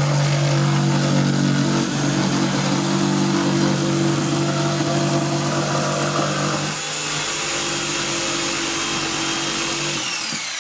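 Electric jigsaw running and cutting through a wall, its motor pitch sagging a little at times under load, then stopping near the end.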